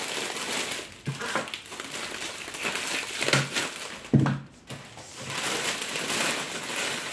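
Clear plastic gift-wrap film crinkling and rustling as it is handled and gathered around a potted plant, with a sharp, louder crackle about four seconds in.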